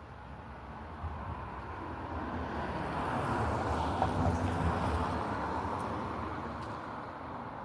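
A vehicle passing by: a rushing noise that swells to its loudest about four seconds in, then fades away.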